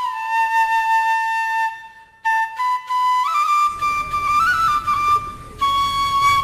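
Bamboo flute (bansuri) playing a slow folk ringtone melody: a long held note, a short break about two seconds in, then notes stepping upward with a quick ornament before another held note. A low rumble joins a little past halfway.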